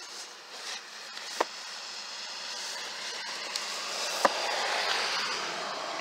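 A vehicle passing on the road, its tyre noise swelling slowly to a peak about five seconds in, with two sharp knocks as hardcover books are handled on a shelf.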